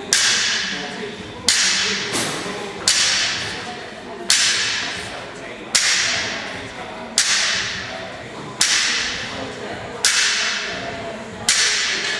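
A sharp hit followed by a hissing swish that dies away, repeated evenly about every one and a half seconds, nine times.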